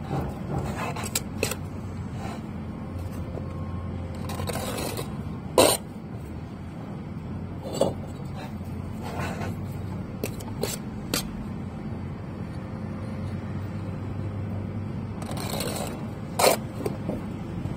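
Bricklaying work: scattered scrapes and sharp knocks of a trowel and bricks, two of the knocks louder than the rest. Under them runs a steady low rumble.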